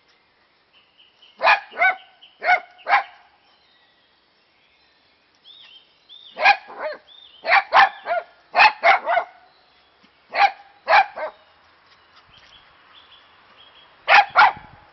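Dachshund barking: short, sharp barks in quick runs of two to four, about fifteen barks in all, with pauses of a few seconds between the runs.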